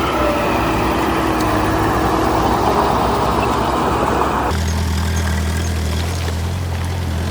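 Engine of heavy construction machinery (bulldozer or dump truck) running. It works with a loud, noisy clatter, then about halfway through switches abruptly to a steady low hum.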